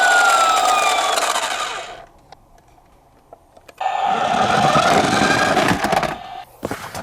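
Toy police car's electronic siren wailing up and down, cutting off about two seconds in. After a short pause, a loud mechanical whirring rattle runs for about two seconds, followed by a few knocks near the end.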